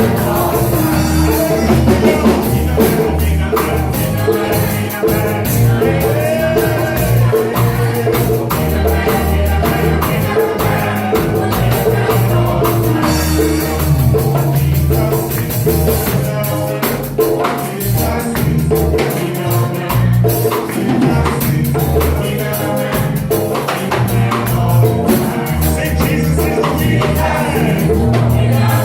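Live praise music with singing, a steady bass and drums, and a tambourine or similar hand percussion.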